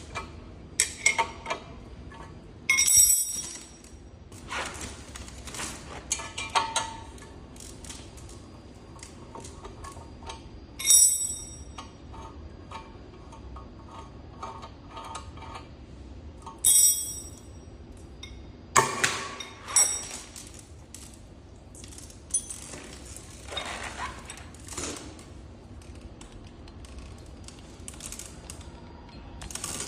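Metal tools and scooter parts clinking and clattering as they are handled, with scattered light clicks and a few louder ringing metal clanks.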